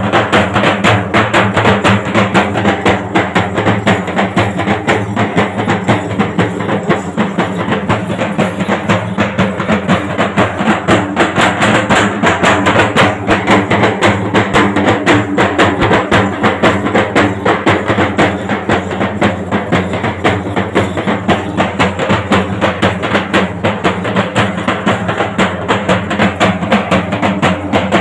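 A folk drum ensemble playing a fast, unbroken rhythm on large double-headed barrel drums beaten with sticks.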